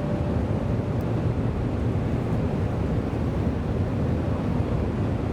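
Steady low rumble of an N700S shinkansen running, heard inside the passenger cabin, with the last note of the onboard chime dying away at the very start.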